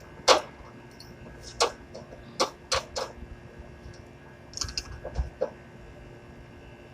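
Irregular sharp clicks and knocks, about nine in all, the loudest about a third of a second in and a quick cluster about five seconds in, over a faint steady hum.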